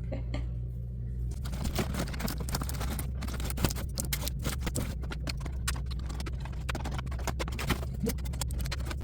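Packaging being handled and unwrapped: a dense run of crinkles, rustles and small clicks that starts about a second and a half in and dies away near the end, over a steady low hum.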